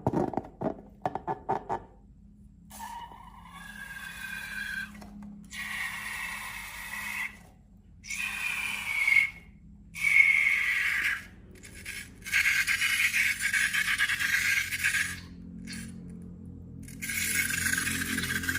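Quick clicking for about two seconds, then air squealing out of a stretched rubber balloon neck in about six bursts of one to three seconds each, the pitch wavering within each burst.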